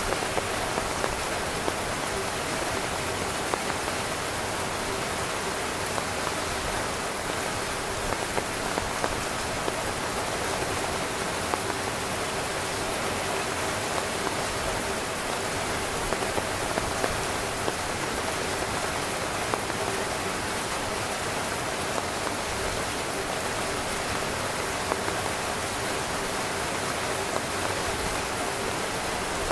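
Heavy rain falling on a camping tent: a steady, even hiss of rain with scattered louder single-drop taps.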